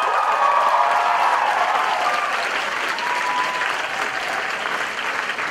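Theatre audience applauding and cheering, with high whoops and shouts over the clapping in the first two seconds and one long whoop about three seconds in.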